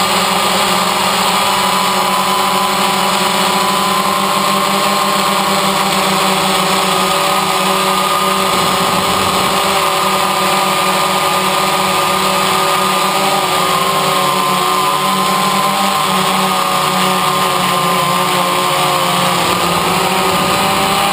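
DJI Phantom quadcopter's motors and propellers buzzing steadily in flight, picked up by the GoPro mounted on the drone, with several tones drifting slightly in pitch now and then.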